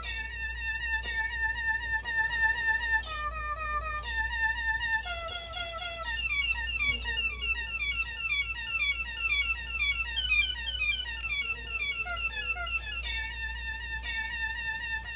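Synthesized melody played back by a piano-roll music app through a laptop speaker: quick pitched notes in several voices, each note bending slightly in pitch, over a steady low hum.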